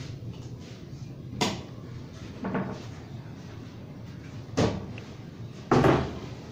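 Four separate knocks and thumps of a plywood sheet being handled and laid on a table saw top, the last and loudest near the end, over a steady low hum.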